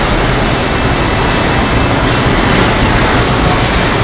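Steady, loud industrial background noise of a boat factory floor: an even rush with a low rumble underneath and no distinct knocks or voices.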